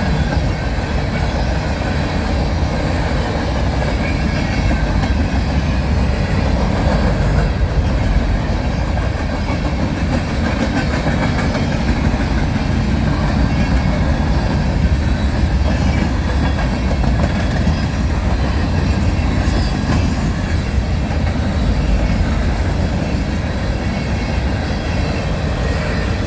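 A loaded freight train of grain hopper cars rolling past, a loud steady rumble of steel wheels on the rails.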